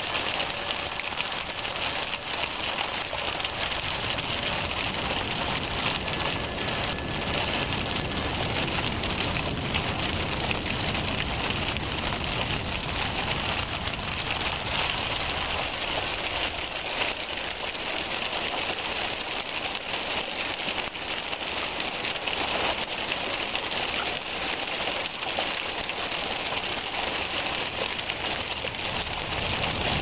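Thin waterfall streaming down a wet rock face, its water spattering and splashing on the rock in a steady, even hiss.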